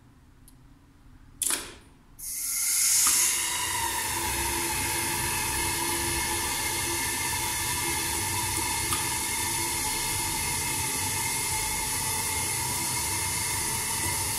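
A contactor in the elevator's relay control cabinet clicks, and about two seconds in the hydraulic drive of a 1993 Schindler elevator starts up: a steady hiss of oil flow with a whine and a low hum, running on.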